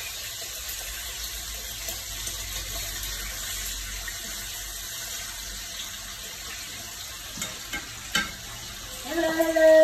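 Bacon strips sizzling in a frying pan, a steady hiss, with a few clicks of a fork against the pan about seven to eight seconds in. Near the end a short, loud, steady tone, about a second long, sounds over the sizzle.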